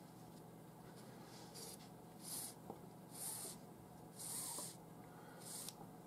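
Nylon paracord being pulled through a knot and through the fingers: about five faint, soft swishes of cord rubbing on cord.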